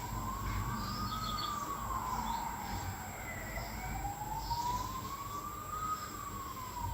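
Siren wailing, its pitch slowly rising and falling, about one full sweep every four to five seconds, over a low rumble.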